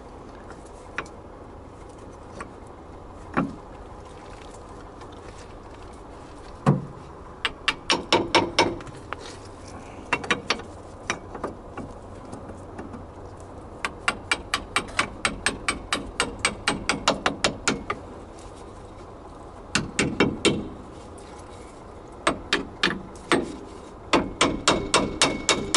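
New brake pads being fitted into the caliper bracket of a Lada Zhiguli front brake: a few single metallic knocks, then runs of light metal taps, about four a second at times, as the tight-fitting pads are worked into place.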